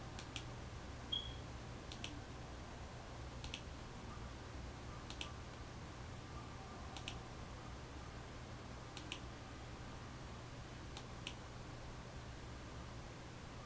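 Computer mouse clicking, single and double clicks every one to two seconds, over a steady low electrical hum. A brief high beep sounds about a second in.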